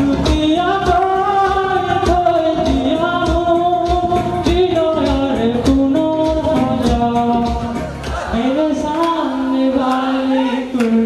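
A man singing into a handheld microphone over backing music with a steady beat. The beat drops out about eight seconds in, leaving long held sung notes.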